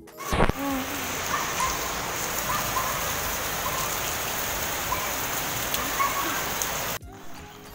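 Steady rain falling on an outdoor swimming pool, a constant even hiss that cuts off abruptly near the end. A single thump just at the start.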